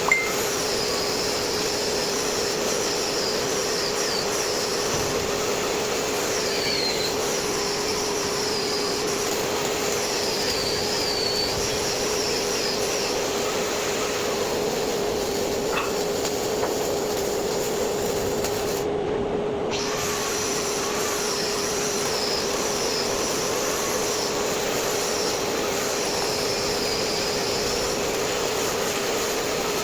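Steady, even machine-like noise with a constant low hum, level throughout, with faint wavering high chirps above it.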